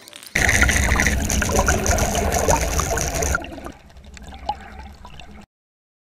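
Water splashing and trickling around a Tiemco Jumbo Cicada topwater lure, its wings paddling on the surface, with a low rumble underneath. It starts suddenly, drops much quieter about three and a half seconds in, and cuts off abruptly near the end.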